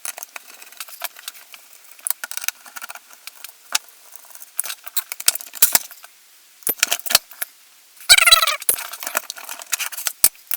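Irregular clicks, taps and light clinks of an airsoft MP5's metal and plastic parts being handled as its receiver pins are worked out, with a brief wavering squeak about eight seconds in.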